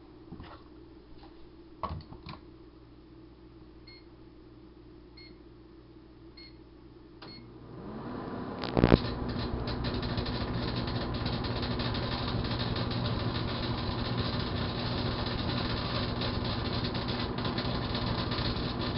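A GE Dual Wave microwave's keypad beeps four times, then the oven starts humming. The foil Kool-Aid packet inside begins arcing with a loud crack and keeps up a dense crackling and snapping over the hum for about eleven seconds, until the oven is stopped abruptly near the end.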